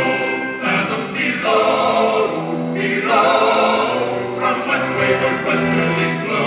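Music with a choir singing long held notes that change every second or so.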